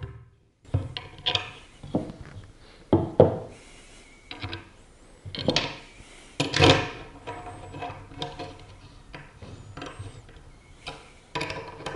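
Bolts being dropped into a windsurf foil's tail wing and screwed into the fuselage by hand with a hex key: irregular clicks, knocks and scraping of metal parts against the wing and fuselage. The bolts are only turned hand tight.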